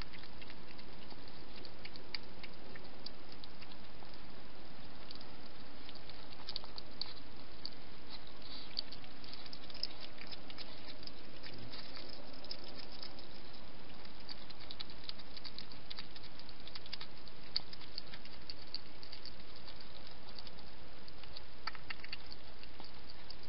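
Wild hedgehog eating from a dish: many small irregular clicking and smacking sounds of chewing, over a steady hiss.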